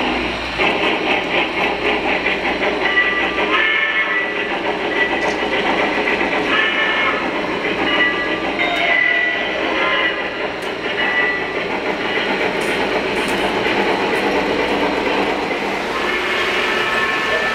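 Three-rail O-scale model train running past on its track: a steady clatter of wheels on the rails, with a rapid even beat in the first few seconds.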